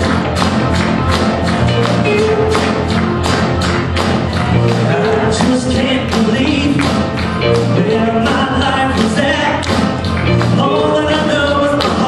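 Live church praise band playing a fast, upbeat song, with guitars, keyboard and a steady driving drum beat.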